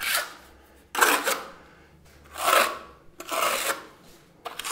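Steel plastering trowel spreading travertine decorative plaster over a wall, a series of scraping strokes about a second apart.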